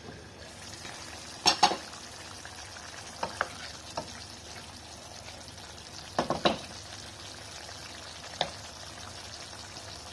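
Ground beef in ketchup sauce sizzling steadily in a saucepan, with sharp clinks against the pan scattered through: two together about a second and a half in, a cluster of three around six seconds, and a last one near eight seconds.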